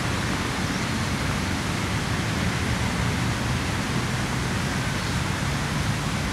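Steady, even hiss of background noise with a low rumble underneath and no distinct events.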